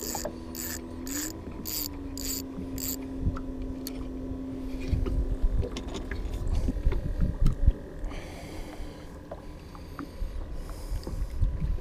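Fishing reel being cranked, about six evenly spaced clicks over the first three seconds, over a steady low hum. Then scattered knocks and thumps of feet and handling on the boat deck, with a few short hissy bursts near the end.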